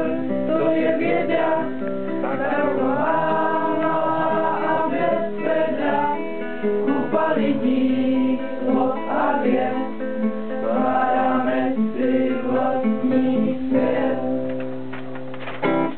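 A small mixed group of men and women singing a song together to a strummed acoustic guitar.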